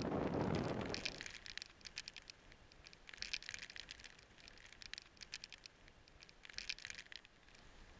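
Wind buffeting the microphone for about a second, then faint crinkling and crackling in three short clusters.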